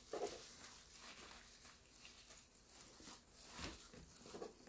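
Hands digging through shredded-paper packing fill in a cardboard box: faint rustling and crinkling, with a few soft brushes.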